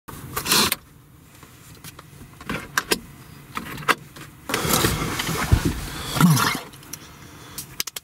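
Clothes and fabric rustling, with scattered knocks and clunks, as a person clambers through the cramped cabin of a van between the front seats; the rustling is loudest in a stretch from about halfway through.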